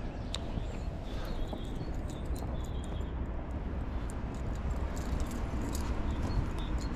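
Steady low rumble of wind on the microphone, with scattered light clicks and ticks as a fishing rod, baitcasting reel and lure are handled.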